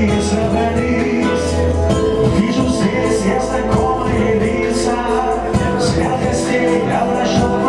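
Music: a song with a steady beat, in a passage without clear sung words.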